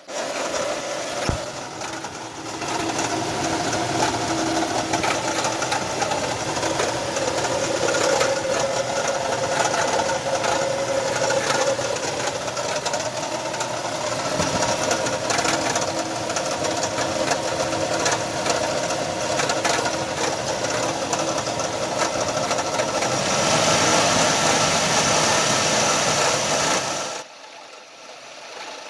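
Nissan Frontier 3.3 V6 running with a loud, steady whine and fast rattle from the engine bay, the sound of a failed alternator bearing. The noise drops away sharply near the end.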